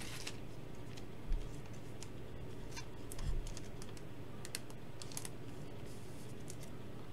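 A few scattered light clicks and taps, with two soft thumps about a second and three seconds in, over a faint steady hum.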